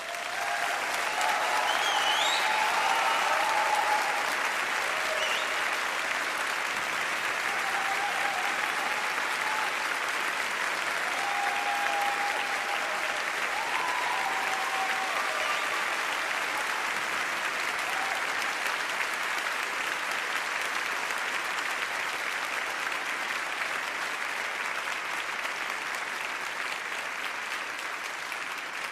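Large audience applauding at the end of a song, with a few shouts and a whistle in the first half. The applause swells within the first couple of seconds and then eases slowly.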